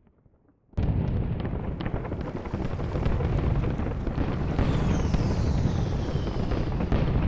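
War-scene sound effects: a sudden loud blast about a second in, then a continuous heavy rumbling din, with a falling whistle partway through.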